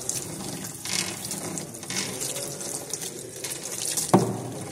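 Water from a salon basin's handheld shower head spraying steadily onto wet hair and into the basin, rinsing out a hair-lightening neutralizer. A single sharp knock about four seconds in.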